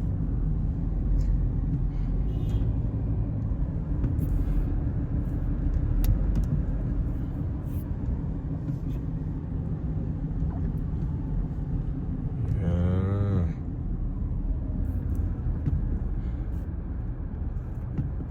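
Steady road and engine rumble from a car being driven, heard from inside. Late on, a brief wavering pitched sound of about a second cuts across it.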